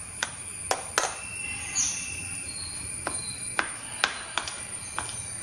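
Steel spoon clicking and scraping against a plastic bowl while cornflour is stirred into mashed banana: about eight sharp, irregular clinks.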